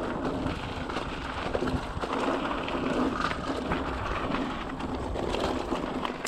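Mountain bike rolling along a dirt singletrack: steady tyre noise with many small clicks and clatters from the bike over roots and rocks.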